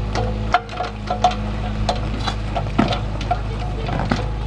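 Mini excavator's engine running steadily under load while it digs a trench, with irregular sharp clicks and knocks from the bucket working through sandy, stony soil.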